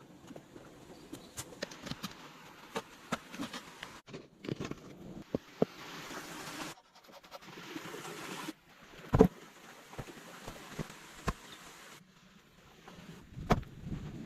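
Irregular short knocks, clicks and rustling from handling things outdoors, broken by abrupt cuts, with one loud thump about nine seconds in.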